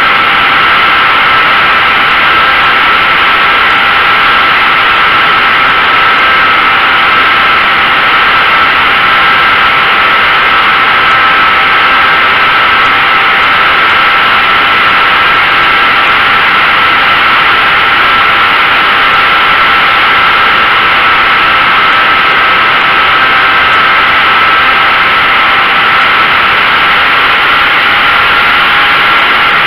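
RC model airplane's motor and propeller running at a steady pitch, heard from a camera mounted on the plane, under a loud rush of air.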